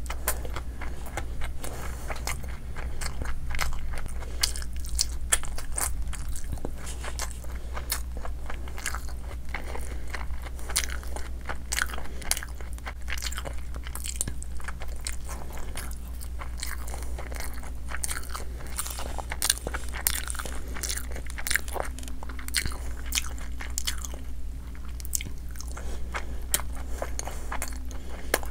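A person biting into and chewing chicken pieces eaten by hand, with many quick mouth clicks, over a steady low hum.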